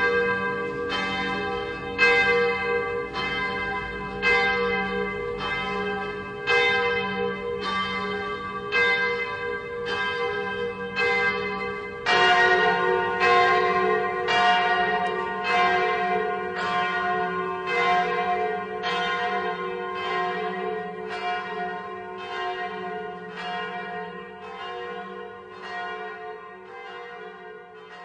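Church bells tolling in a steady rhythm, about one stroke a second, each stroke ringing on into the next. About twelve seconds in, the strokes become louder and take on a different set of pitches, then die away gradually near the end. It is rung as a mourning toll.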